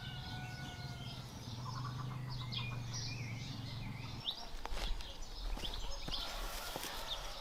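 Wild birds chirping and whistling, with a low steady hum that stops suddenly a little past halfway, followed by a few sharp clicks.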